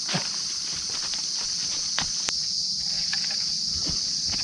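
Steady high-pitched insect chorus, with scattered footsteps and clicks from walking.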